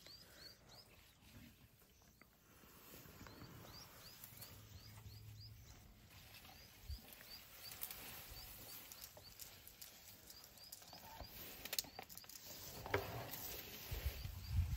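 African bush elephant feeding close by: leafy plants rustling and tearing as it pulls them with its trunk, with soft crunching as it chews. A short high chirp repeats about twice a second over it, and low, heavier sounds rise near the end as the elephant moves.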